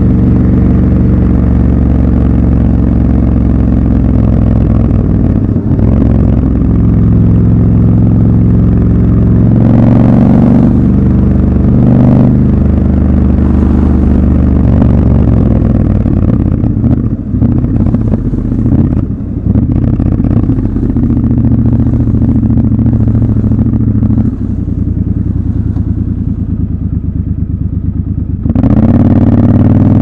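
Triumph Scrambler 1200 XC's parallel-twin engine running under way, heard from the rider's seat. Revs rise and fall about ten seconds in, it settles lower and quieter through the second half, then picks up sharply with climbing revs near the end as the bike accelerates.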